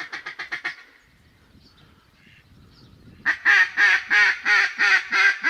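Mallard quacking: a quick string of short quacks that ends about a second in, then, after a pause, a loud series of about eight evenly spaced hen-style quacks.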